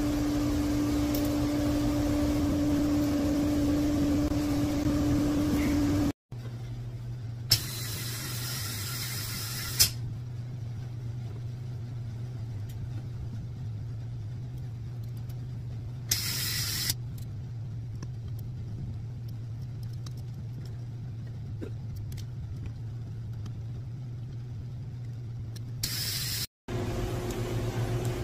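Steady workshop machine hum that breaks off suddenly twice and comes back at a lower pitch. Three short hisses cut in, the longest about two seconds starting some seven seconds in, while valve springs are fitted on the cylinder head in the head machine.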